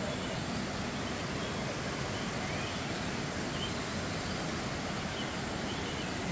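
Steady rushing of river water, with faint bird chirps now and then.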